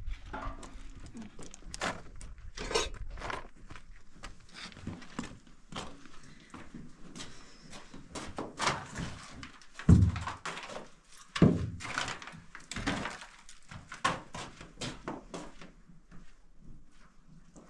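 Short scrapes, rustles and knocks of things being handled and moved in a small bare room, with two heavy thumps about ten and eleven and a half seconds in.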